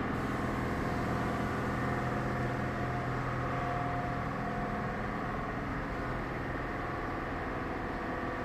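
Steady droning hum made of several held tones over a faint hiss, with no strokes or changes, like a machine or fan running continuously.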